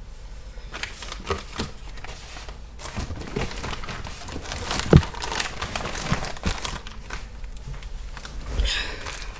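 A plastic parts bag crinkling and rustling as it is handled, with a sharp click about halfway through.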